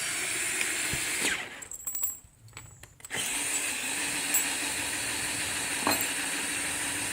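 Electric drill boring bolt holes through wood: it runs for about a second, stops for a couple of seconds with a few knocks, then runs steadily again from about three seconds in.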